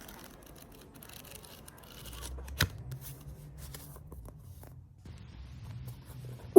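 Quiet handling noises: soft rustling and scattered light clicks, with one sharper click a little over two and a half seconds in and a faint low hum after it.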